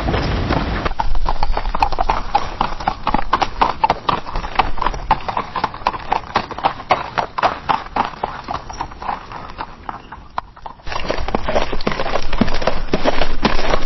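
A horse galloping on a dirt path: rapid, rhythmic hoofbeats thudding on packed earth. The recording changes to a new take about a second in; the hoofbeats grow fainter toward ten seconds, then a louder take begins about eleven seconds in.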